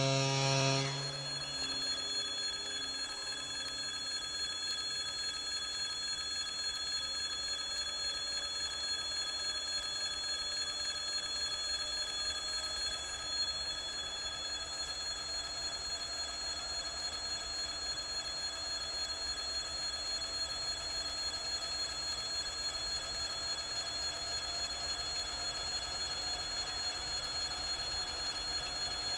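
A 2TE116 diesel locomotive's horn blast ends about a second in. Its turbocharged 5D49 diesel engines then run on with a steady high whine over a low rumble, the engine note slowly rising as the locomotive throttles up to get its freight train moving.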